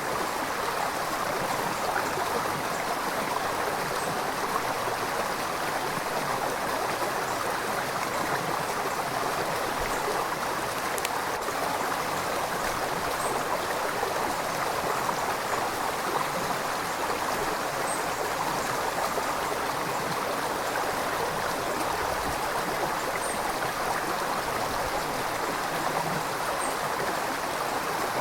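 River water flowing and burbling over stones in a steady rush, with faint small splashes now and then.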